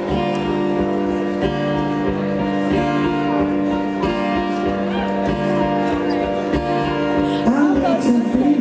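Rock band playing live, with strummed electric guitar chords over a steady drum and bass beat. Crowd voices whoop near the end.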